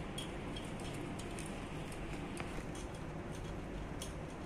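Faint scattered clicks and taps of the plastic console and its wires being handled and pushed into place on the elliptical's post, over steady room noise.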